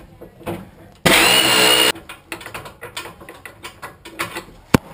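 A short whir from a small motor, about a second in: it rises in pitch, holds steady for under a second and stops abruptly. Light knocks and handling noise are heard around it, and there is a single sharp click near the end.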